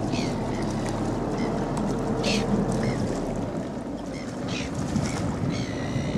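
Motorboat engine running with a steady low hum, over a wash of wind and water.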